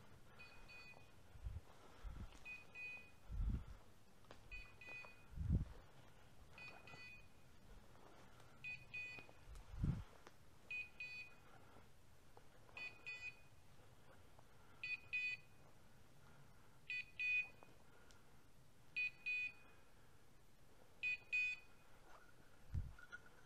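Hunting dog's beeper collar sounding a short high double beep about every two seconds, growing louder toward the end as the walker closes in on the dog. A few low thumps from footsteps through bracken.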